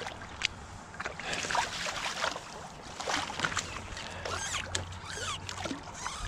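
Irregular small splashes, drips and sloshes of water as a freshly netted rainbow trout is handled in a landing net in the shallows, with quick watery plinks scattered throughout.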